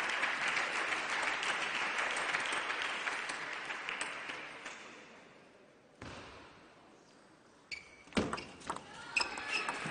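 Clapping in the hall that fades out over about five seconds. In the last two seconds a table tennis ball knocks sharply on paddles and table several times as a rally begins.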